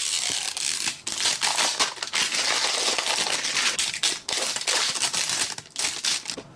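Plastic wrapping on a toy package crinkling and crackling as fingers peel and tear it off. The crinkling goes on almost without a break, full of sharp crackles, and dies down near the end.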